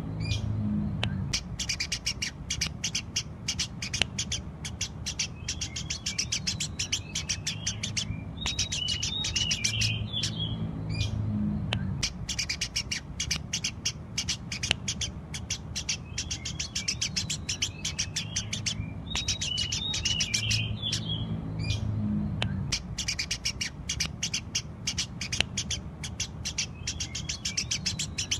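Eurasian tree sparrows chirping: a dense, continuous chatter of rapid, high chirps, with a lower warbling phrase that returns about every ten seconds.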